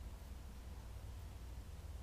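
Quiet room tone: a steady low rumble with a faint even hiss and no distinct sounds.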